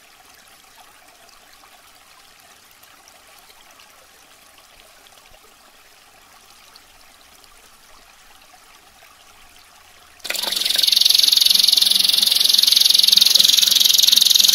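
Faint trickling water, then about ten seconds in a domestic canary abruptly starts singing loudly: a high, rapid, unbroken rolling trill.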